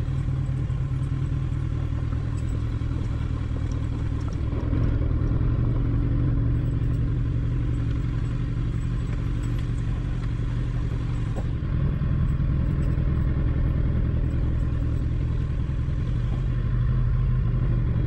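Kawasaki Ninja 1000's inline-four engine running at low speed as the motorcycle rolls down a rough, rocky dirt track, a little louder from about four and a half seconds in, with some clatter from the loose stones.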